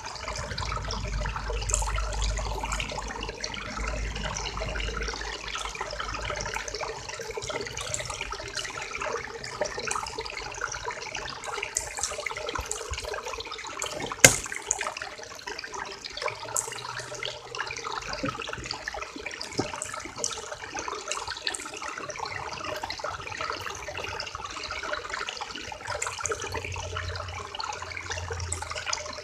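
River water running and babbling, a steady rush with many small splashes and gurgles. A low rumble sits under it for the first several seconds, and one sharp click sounds about halfway through.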